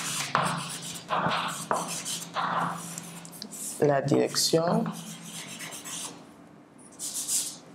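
Chalk scratching on a blackboard in a series of short strokes as a word is written out, with a brief spoken sound about four seconds in.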